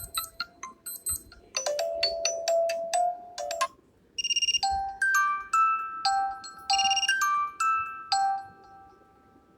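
Vivo Y17s alarm ringtones: a short chiming melody ends, and after a brief pause about four seconds in a second melody of bell-like notes plays and dies away near the end.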